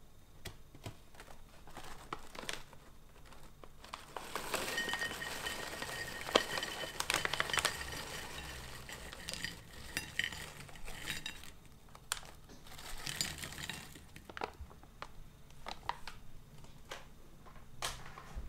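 Puffed corn and rice snacks pouring out of a crinkling foil-lined Calbee Sakura bag onto a ceramic plate: a dense patter of small clicks on the plate for several seconds in the middle, then scattered single clicks and crinkles.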